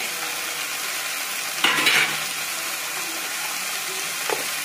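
Yardlong beans and potatoes frying in a steel kadhai with a steady sizzle. A short louder burst of noise comes about a second and a half in, and a single click near the end.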